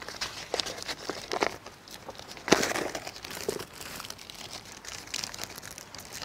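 KitKat chocolate-bar wrappers being torn open and crinkled by hand, two people unwrapping at once, in irregular rustling bursts. The loudest rustle comes about two and a half seconds in.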